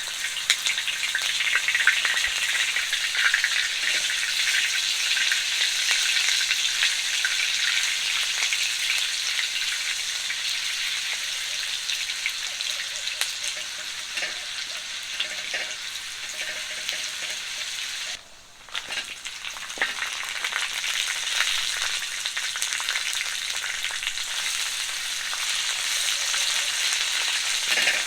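Food sizzling in a hot pan: a steady crackling hiss that drops away suddenly for a moment about two-thirds of the way through, then comes back.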